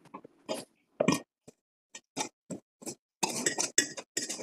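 Light metallic clicks and clinks from a round metal baking pan of roasted vegetables being handled, thickening into a quick run of scrapes and clatter about three seconds in.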